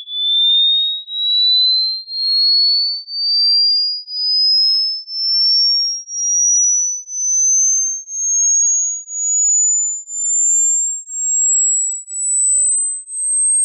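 Hearing-test sweep tone: a single high, pure tone that climbs slowly and steadily in pitch, swelling and fading about once a second. The upward sweep is used to find the highest pitch the listener can still hear, as a rough gauge of the ear's age.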